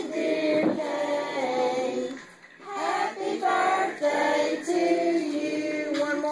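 Children and women singing a song together, in long held notes, with a brief pause about two seconds in.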